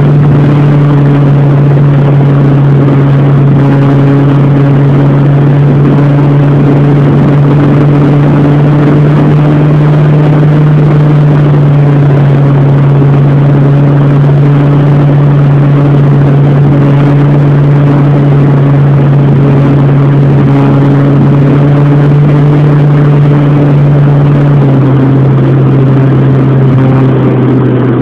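Brushless electric motor and propeller of an RC Cessna 182 model plane in flight, heard from a phone taped to the airframe: a loud, steady drone over a rush of noise, dropping a little in pitch near the end as the throttle eases.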